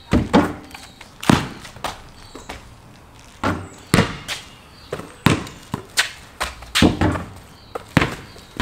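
Basketball bouncing on a concrete driveway: a dozen or so sharp thuds at uneven intervals.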